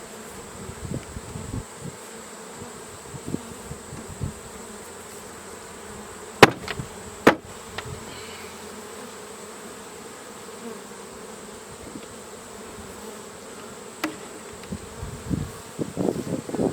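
Honeybees buzzing steadily around an opened hive, with scattered handling thumps and two sharp knocks about a second apart, six to seven seconds in.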